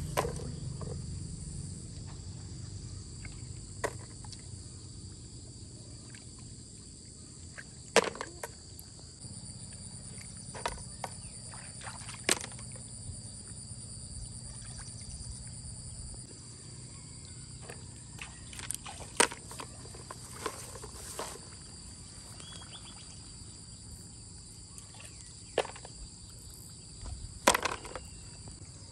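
Hands scooping and splashing in shallow water, with about half a dozen sharp clacks as snails are dropped into a plastic basin. Insects call steadily in a high, even drone throughout.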